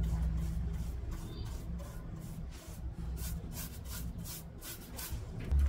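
Bristle paintbrush stroking paint onto a wooden frame: a run of quick brush strokes, about four a second, plainest in the second half, over a low steady hum.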